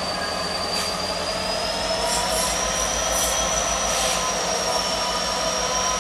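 Freight train running by with a steady, high-pitched wheel squeal that rises slightly in pitch a couple of seconds in and then holds, over the low rumble of the train.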